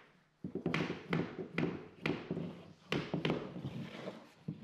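Hammer striking a tapping block against the edge of a wooden parquet plank: a run of sharp knocks, about two a second. The blows drive the tongue-and-groove joint between two glued-down rows closed.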